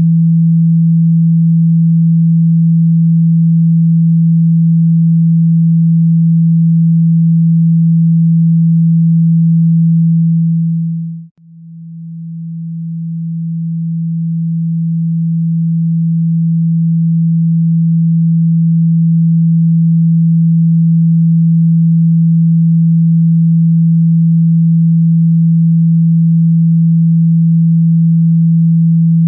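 Speaker-cleaning tone: one low, steady pure sine tone, played loud to shake water and dust out of a phone speaker. About eleven seconds in it fades out to silence, then slowly swells back to full over the next several seconds.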